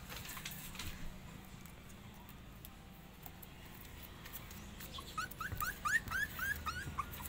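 Puppy whimpering: a quick run of about ten short, high whines, each rising in pitch, starting about five seconds in.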